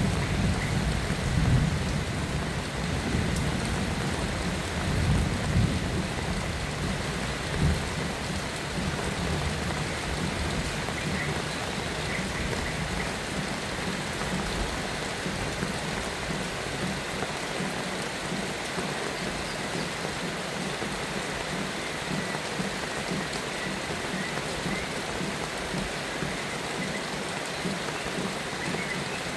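Steady rain with low thunder rumbling through the first eight seconds or so, after which the rain goes on alone.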